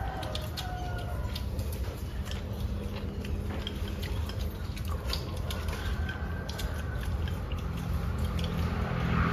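Chickens clucking now and then in the background, over the light clicks of chopsticks and bowls at a meal and a steady low hum.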